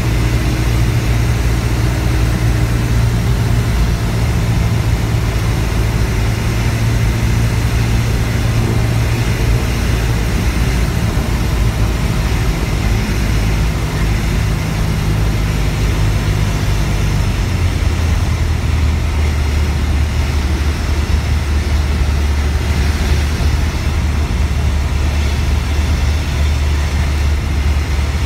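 Cessna 172R Skyhawk's four-cylinder Lycoming IO-360 engine and propeller droning in the cabin on final approach, over steady wind and airframe noise. About two-thirds of the way through, the engine note drops lower as power is reduced for landing.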